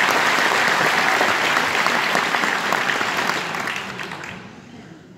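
Large audience applauding, dying away about four seconds in.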